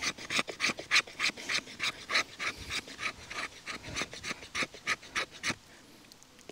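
Knife blade scraping down a wooden stick in quick, even rasping strokes, about three to four a second, raising fine scrapings for tinder; the scraping stops about five and a half seconds in.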